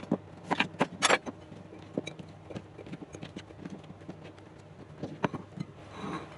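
Kitchen knife slicing daikon radish, the blade knocking sharply on a plastic cutting board several times in the first second or so. Softer taps follow as the slices are pushed onto a ceramic plate, with one more sharp knock a little after five seconds and a brief scrape near the end.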